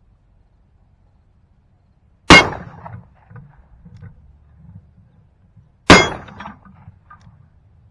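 Two shots from a .36-calibre 1851 Navy cap-and-ball black-powder revolver, about three and a half seconds apart, each a sharp report followed by a short ringing tail.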